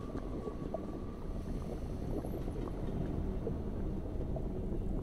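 Muffled rushing and bubbling water as heard from underwater, a steady low churning crackle. A faint steady tone fades out about two seconds in.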